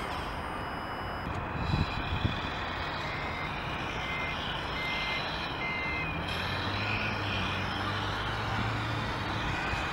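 Electronic reversing-alarm beeps from an RC construction model's sound module, about four evenly spaced beeps a little under a second apart starting about three seconds in, over a steady simulated diesel engine sound. Two short knocks come about two seconds in.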